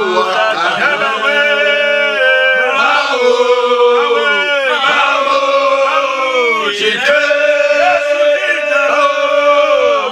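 Men's voices singing a slow prayer chant, with long held notes that slide down at their ends.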